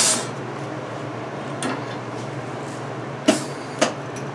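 Handling noises as a MIG welding gun is picked up and readied: a short clatter at the start, then two sharp clicks about half a second apart, over a steady low hum.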